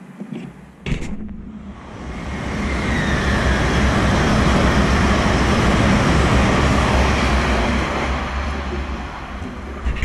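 High-speed passenger train passing at speed on the main line: a rushing roar of wheels and air that builds over a couple of seconds, holds loud for several seconds and then eases off. A sharp knock comes about a second in, and another loud burst right at the end.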